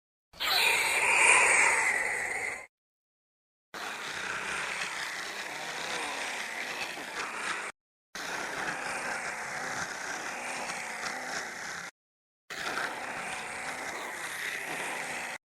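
Procompsognathus dinosaur sound effects: four separate designed creature calls, each cut off into silence. A loud, harsh call of about two seconds comes first, followed by three longer, quieter, noisy calls of about four seconds each.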